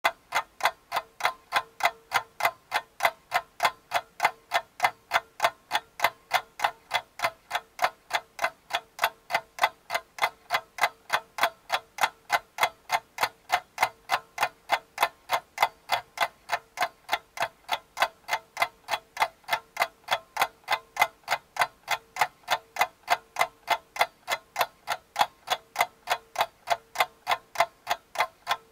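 Steady, even mechanical ticking, about three to four ticks a second, never changing in pace.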